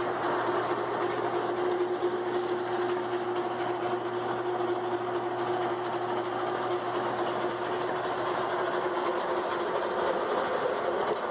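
Vertical milling machine running while it mills the cutting edge of a Hardox 450 wear plate: a steady mechanical drone with one constant tone.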